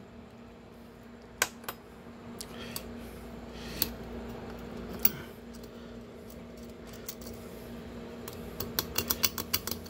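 Small metal clicks and taps of fingers working the bearing and parts inside a brake rotor's hub bore, a few scattered clicks and then a quick run of clicks near the end, over a steady low hum.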